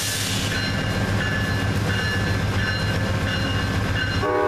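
Amtrak GE Genesis diesel locomotive running steadily with a low hum as the train pulls out. Its multi-tone horn starts sounding about four seconds in.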